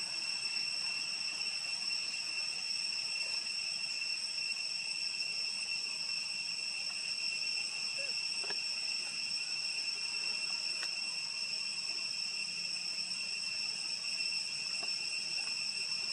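Insects in chorus: one steady, high-pitched drone with no breaks, and a few faint ticks now and then.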